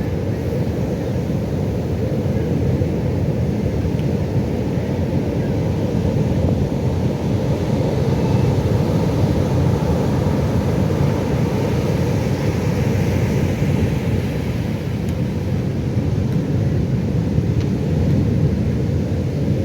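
Pacific Ocean surf: a steady, low rumble of waves breaking, swelling a little now and then.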